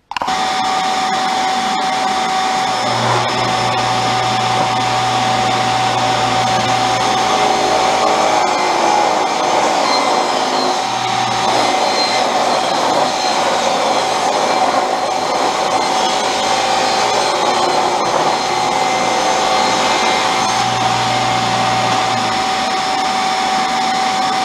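Table saw running with a steady whine, ripping thin strips off a board to make jig runners; a deeper hum comes and goes several times as the work is fed through the blade.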